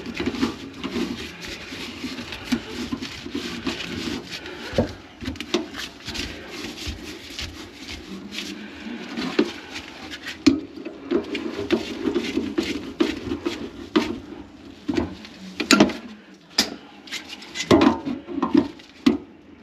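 Irregular knocks, clicks and scraping from working on a kitchen sink's brass drain pipes with gloved hands and tools, during a job to clear a grease-clogged drain line.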